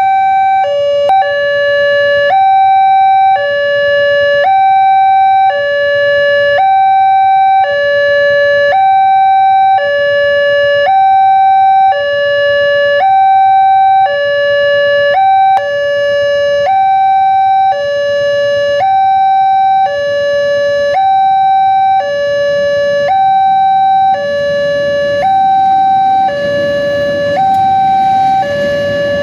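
Railway level-crossing warning alarm sounding its electronic two-tone signal: a higher note and a lower note alternating about once a second, over and over, warning that a train is coming. A rumbling noise grows underneath it near the end.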